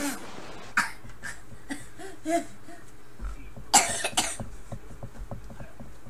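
A person coughing: a short cough about a second in and a louder double cough about four seconds in.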